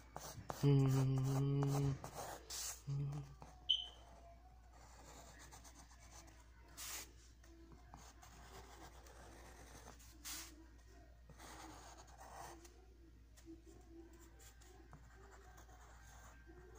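Pencil drawing on lined notebook paper: faint, scattered scratching strokes. Near the start a loud, steady low tone sounds for about a second, followed by a short repeat of it and a brief high chirp.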